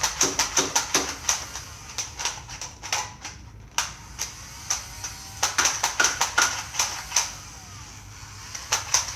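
Runs of sharp plastic clicks, about three to five a second, from a Nerf blaster's mechanism being worked, with a short pause about three seconds in and another near the end.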